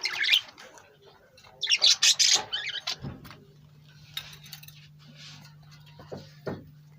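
Birds calling: a burst of high chirps at the start and a louder cluster of chirps about two seconds in, then fainter scattered calls.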